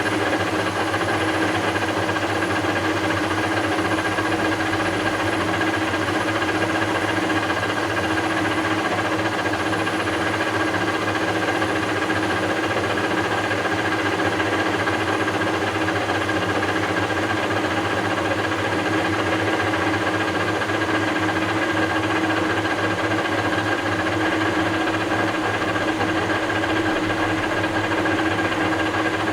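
Webb WL435 17x40 gap-bed lathe running steadily under power while taking a slow-feed face cut, a constant hum with a steady whine and no change in speed.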